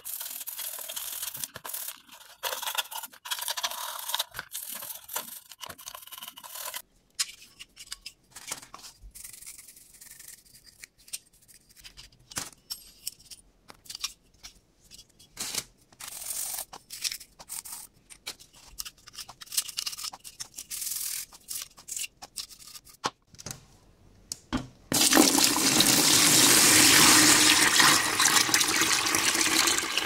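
A plastic toothbrush scrubbing the brass rotary-dial mechanism of a vintage telephone, followed by scattered light clicks and taps. About 25 seconds in, water starts pouring hard and splashing into a basin, and this is the loudest sound.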